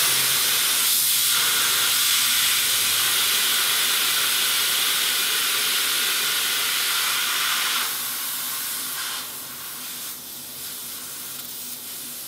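Nitrogen holding charge hissing out of a Cooper & Hunter mini-split indoor unit's refrigerant line as the flare cap is loosened. The steady hiss weakens about eight seconds in and goes on more faintly as the pressure bleeds down.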